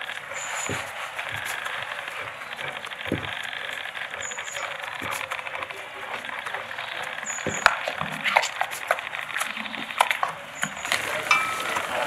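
Outdoor ambience: a steady hiss with scattered light taps and clicks, a brief high chirp every three to four seconds, and faint voices.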